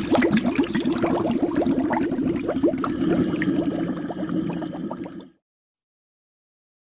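Bubbling, gurgling water sound effect standing for the ship sinking, fading out and cutting off about five seconds in.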